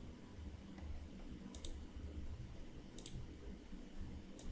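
Computer mouse clicking: three faint clicks about a second and a half apart, over a low steady room hum.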